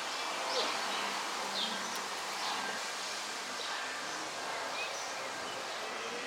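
Outdoor woodland ambience: a steady background hiss of rustling foliage, with faint short bird chirps about once a second.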